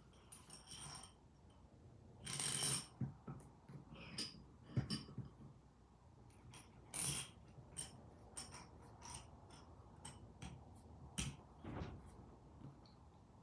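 Irregular metal clicks and clinks of bench vise parts being handled and fitted during reassembly, a few of them ringing briefly.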